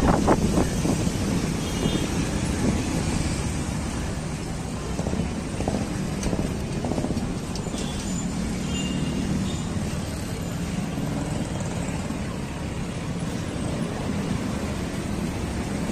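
Road traffic: a steady rumble of vehicle engines and tyres, with a few brief high tones about two seconds in and again about halfway through.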